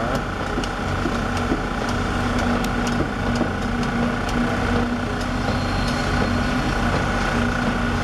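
Steady machinery drone of a concrete pour: a concrete pump's engine running under the hum of concrete poker vibrators, with a steady tone that drops out briefly a few times and scattered faint ticks.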